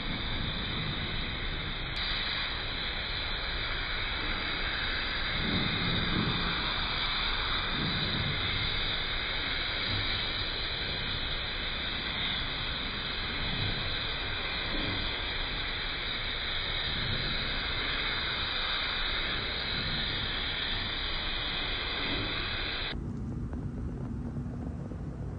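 Steady hiss of compressed air from a gravity-feed paint spray gun laying down paint. Near the end the hiss cuts off, leaving a lower, quieter hum.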